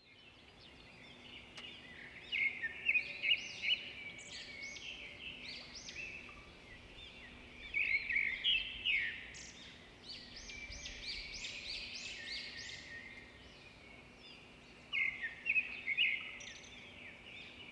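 Small birds chirping and twittering in quick overlapping calls, in several spells, over a faint outdoor background.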